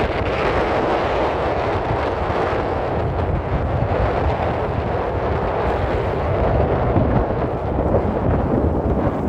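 Sea waves washing steadily, with wind buffeting the microphone as a constant low rumble.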